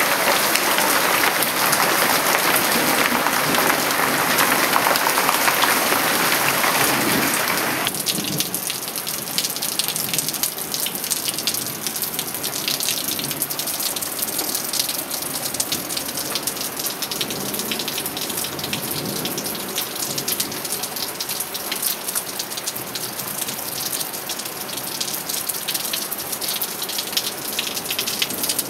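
Heavy rain falling during a thunderstorm, a dense steady hiss. About eight seconds in it drops abruptly to lighter rain, with many single drops ticking through it.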